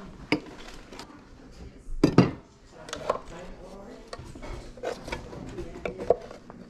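Ceramic dishes and ornaments clinking and knocking as goods on a crowded sale table are handled, with one louder thump about two seconds in.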